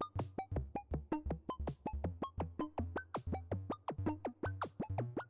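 Electronic background music with a steady beat. Short synth notes drop in pitch one after another over a repeating bass note, with a cymbal-like hiss about every second and a half.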